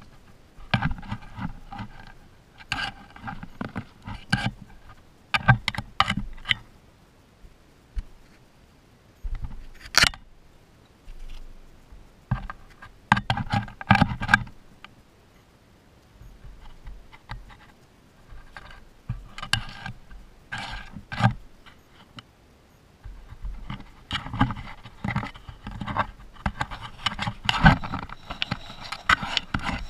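Baby striped skunks nosing, pawing and brushing their fur against the camera housing: irregular bursts of scraping and scratching with a few sharp clicks, coming more steadily in the last few seconds.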